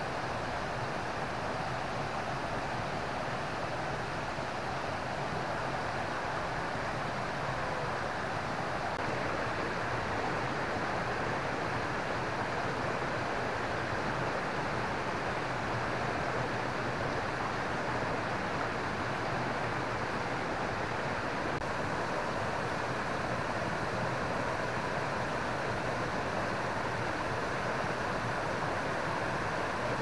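Steady rush of river water flowing over rocks and small cascades, an even hiss with no breaks.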